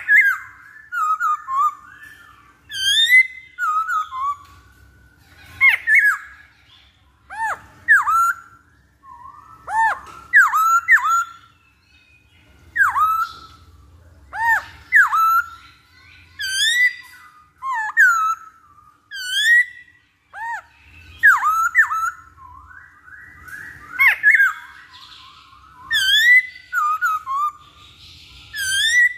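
Black-throated laughingthrush singing: loud, clear whistled notes that swoop down and back up, given every second or two with chattering runs between.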